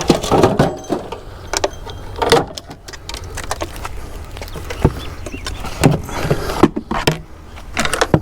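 Junk being shifted and knocked about while rummaging through a pile of discarded electronics: irregular knocks, clicks and rustles, with a few sharper knocks in the second half, over a steady low rumble.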